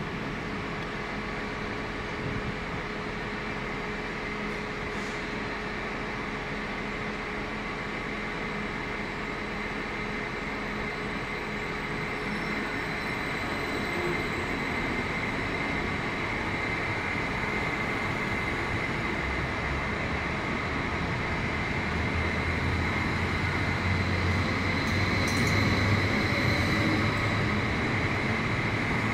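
S-Bahn electric multiple unit moving along the platform and gathering speed: a steady electric motor whine rising slightly in pitch over the rolling and running noise, growing louder towards the end.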